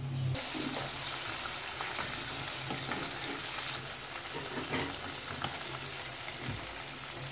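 Flour-coated chicken pieces deep-frying in hot oil in a pan: a steady sizzle with fine crackling.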